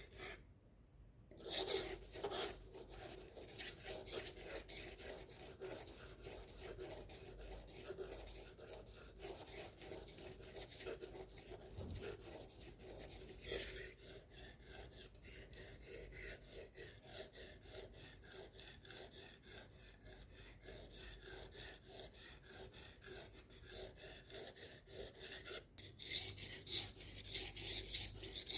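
Kitchen knife being sharpened: the steel blade rasping against the sharpener in quick, even, repeated strokes. The strokes stop briefly about a second in and again shortly before the end, then come back louder.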